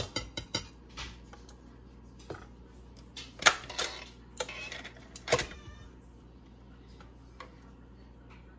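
Kitchen utensils clinking and knocking against a mixing bowl as flour is added to cake batter. A quick run of sharp clicks comes just after the start, then single louder knocks about three and a half and five and a half seconds in.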